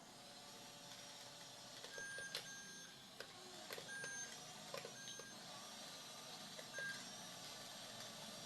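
About four short, high electronic beeps with light clicks, over a faint steady hum.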